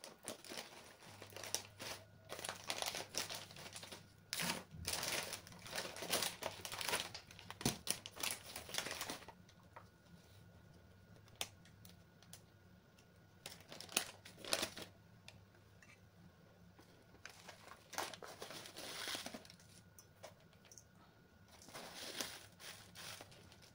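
Hands squishing and kneading raw ground-meat mixture in a stainless steel bowl, in wet, crackly bursts for the first nine seconds or so, then only a few short bursts of handling later.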